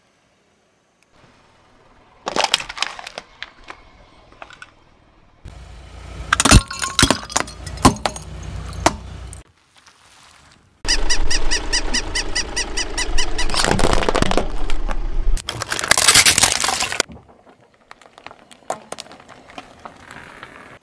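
A car tyre rolling slowly over objects and crushing them, in several short bursts: crunching, cracking and crackling over the low rumble of the tyre on asphalt. Near the end come a few sharp snaps as wax candles break under the wheel.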